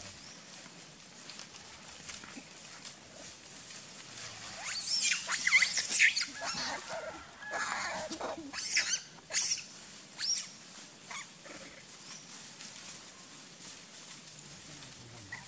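Monkey squealing calls: a burst of high, shrill cries bending in pitch about five seconds in, then lower falling cries, then three short sharp calls.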